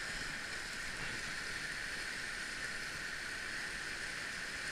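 Whitewater rapids rushing, a steady, even wash of moving water.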